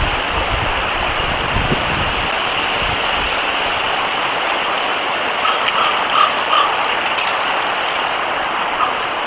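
Steady outdoor hiss on a wildlife camera's microphone, with low rumbling through the first three seconds and a few faint short tones a little past the middle.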